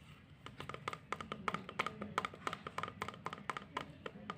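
Quick, irregular tapping or knocking, several taps a second, each with a short ringing tone, starting about half a second in.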